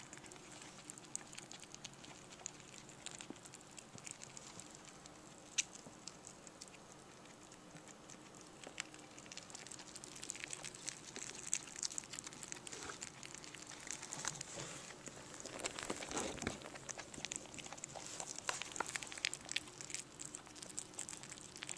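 Baby rabbit nibbling a piece of banana: faint, quick, irregular clicks of chewing and small scuffles that grow busier about halfway through.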